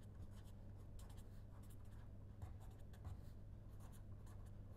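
A pen scratching on paper in many short strokes as words are handwritten, faint, over a steady low electrical hum.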